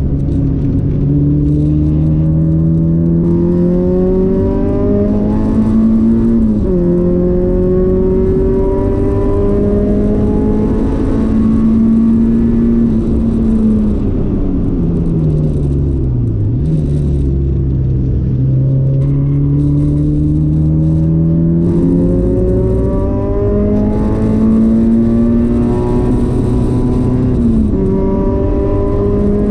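Nissan SR20VE 2.0-litre four-cylinder in a 1994 Sentra SE-R at full throttle on track. Engine pitch climbs and drops sharply at an upshift about six seconds in, falls away from about the middle with a sharp dip, then climbs steadily again to another upshift near the end, over steady road and wind noise.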